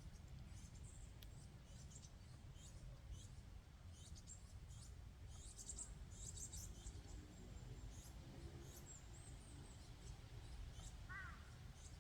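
Faint birdsong: many brief, high chirps from small birds over a steady low rumble of wind. A short, lower call comes about eleven seconds in.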